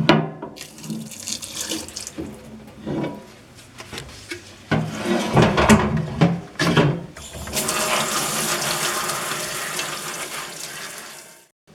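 Water from a tap splashing into a sink, with irregular knocks and splashes of things being rinsed. Then the tap runs steadily for a few seconds and stops suddenly near the end.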